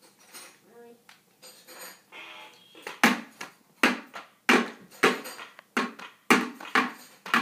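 A child drumming on a makeshift drum: after a quiet start, a run of loud, sharp hits begins about three seconds in, roughly two a second, each ringing briefly.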